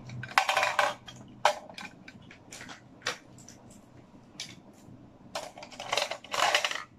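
Makeup brushes being put into a clear glass holder, their handles clinking and rattling against the glass and against each other. There is a burst of rattling just after the start, single clinks through the middle, and another burst of rattling near the end.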